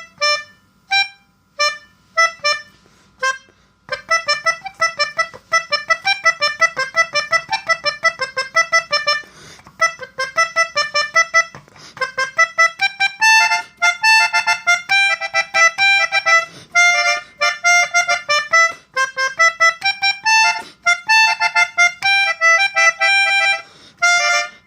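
Basuri telolet horn, a multi-tone electric bus horn, playing a tune. A few short, separate honks sound over the first four seconds, then a fast run of notes moves up and down in pitch with only brief breaks.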